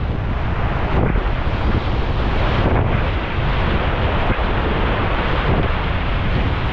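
Whitewater rapids rushing and churning around a kayak, a steady loud roar of water with heavy low rumble from wind and water buffeting the microphone.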